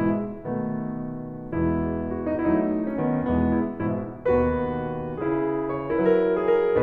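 Background piano music: sustained chords and melody notes changing about once a second.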